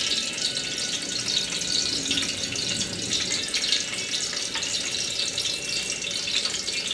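Green onion pieces sizzling in hot oil in an aluminium wok: a steady hiss with faint crackles.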